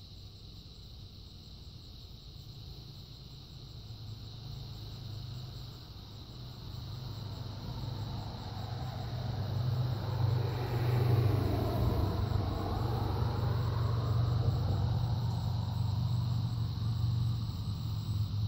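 A motor vehicle passing close by, growing louder to a peak about halfway through, over a steady low hum.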